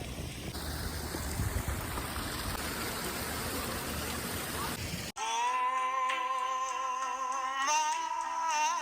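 Steady rush of running water, cut off abruptly about five seconds in by music with long, wavering held notes.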